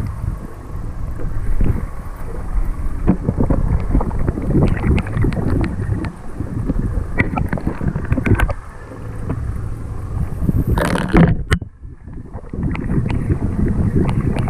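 Wind buffeting the camera microphone and water sloshing against a small boat while a fish is fought on a bent rod, with scattered knocks and clicks throughout. A louder rush of noise comes about three-quarters through, followed by a brief hush.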